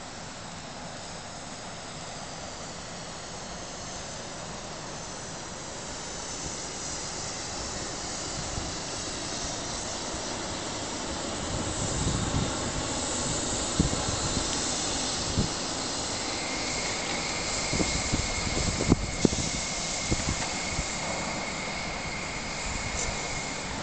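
Hyundai Rotem urban maglev train running along its elevated guideway: a smooth rushing hiss with no wheel-on-rail clatter, growing louder as the car draws nearer. A steady high whine joins about two-thirds of the way through, and a few low thumps come in the second half.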